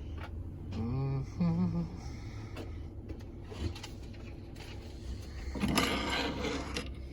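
A steady low hum like an idling engine, with a short murmured voice about a second in and a louder, noisier sound with some voice in it near the end.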